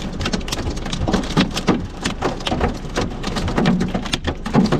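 Heavy rain pelting a car's roof and windshield, heard from inside the cabin: a dense, irregular drumming of sharp hits.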